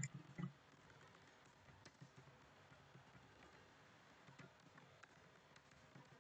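Near silence with faint computer keyboard clicks as a command is typed, with two louder key taps right at the start about half a second apart.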